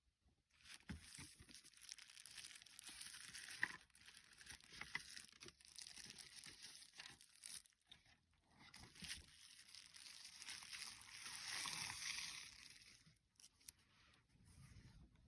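Faint crinkling and tearing of packaging being opened, in irregular stretches with a few sharp clicks.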